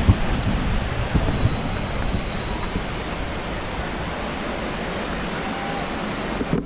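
Steady rush of flowing water, with a few soft thumps in the first second or so.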